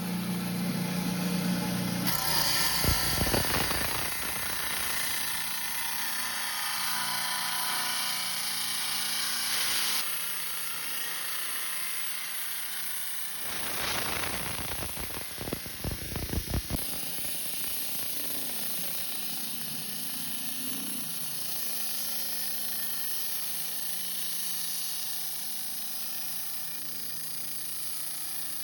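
Rock saw running and cutting through a Kentucky agate. The machine noise changes abruptly several times, and there are clusters of sharp knocks about three seconds in and again around the middle.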